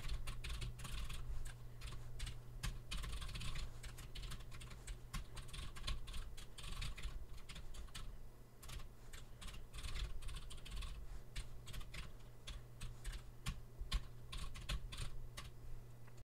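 Typing on a computer keyboard: quick, irregular keystroke clicks over a low steady hum. It cuts off suddenly just before the end.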